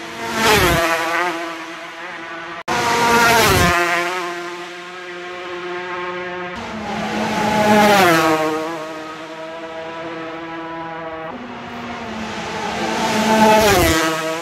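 Classic racing motorcycles passing one after another at full speed, four pass-bys in all. Each engine note rises to a loud peak and drops in pitch as the bike goes by.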